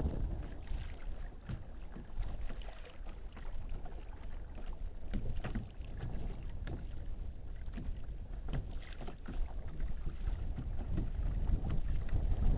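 Water lapping and slapping irregularly against the hull of a kayak on the water, with a steady low rumble of wind on the microphone.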